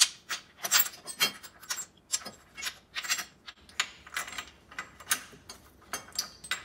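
A string of light, irregular metal clicks and scrapes, about two a second, as a bolt and washer are worked by hand into a metal bracket behind the A-arm mount. The sharpest click comes right at the start.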